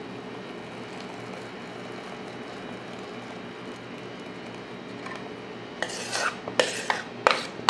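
Thick dhokla batter poured quietly into a greased steel plate, then, about six seconds in, a few short scrapes of a utensil against the bowl as the last of the batter is scraped out.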